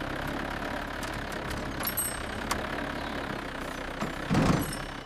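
Excavator engine running steadily, with a brief louder surge near the end.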